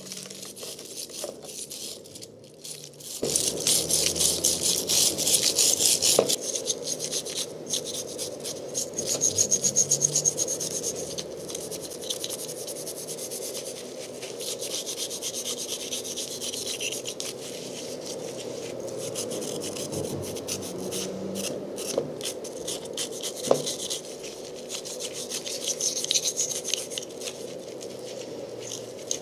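Flat hand file scraping rust off a rusted steel hook in repeated back-and-forth strokes, starting about three seconds in.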